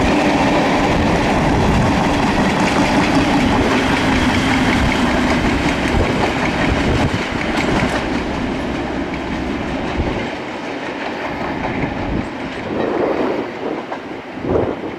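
Locomotive-hauled passenger coaches running through a station at speed, their wheels clattering over the rail joints. The sound eases off and grows quieter about two-thirds of the way in.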